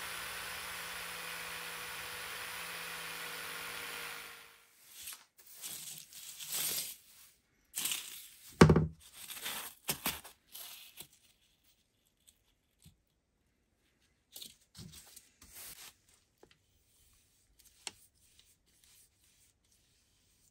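Steady sanding of a wooden axe handle over a steady motor hum for about four seconds, then it cuts off. After that come irregular rustling and scraping in loose wood shavings, with one sharp loud knock about eight and a half seconds in, then a few faint crinkles and taps of paper.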